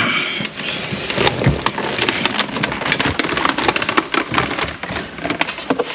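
Hands working among plastic trim and wiring in the cramped space under a truck's dashboard: a sharp knock at the start, then dense, rapid plastic clicking and rustling.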